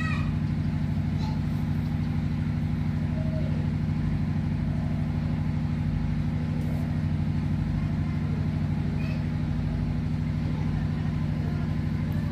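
An engine running steadily at constant speed, a low, even drone.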